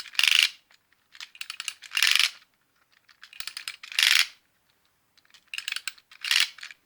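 Clockwork spring of a 1950s German Arnold Mac 700 tin wind-up toy motorcycle being wound with its key: runs of rapid ratchet clicks, each ending in a louder rasp, four times about two seconds apart.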